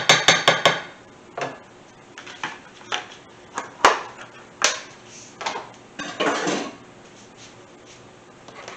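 Kitchen utensils and dishes clattering: a fast run of clicks at the start, then scattered knocks and clinks, the sharpest about four seconds in.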